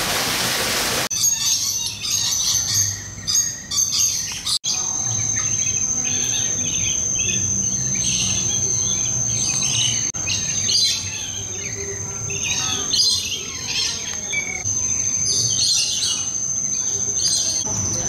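Many birds chirping and calling at once in an aviary, with a steady high-pitched whine running underneath from about a quarter of the way in. A rushing hiss fills the first second and cuts off abruptly.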